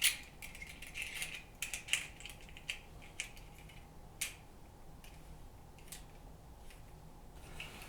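Light, irregular clicks and rattles of a Copper Creek door knob's metal parts being handled and fitted together, studs going into their holes. The clicks are most frequent in the first half.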